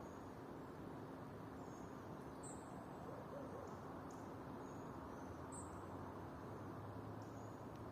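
Faint forest ambience: short, thin, high-pitched bird chirps recurring about every three seconds over a steady low rushing background.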